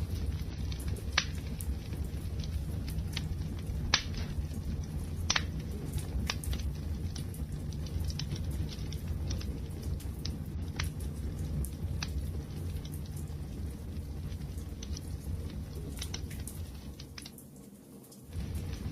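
Campfire crackling: sharp wood pops and snaps every second or so over a low, steady rumble of flames. Near the end it briefly dips in level and then comes back.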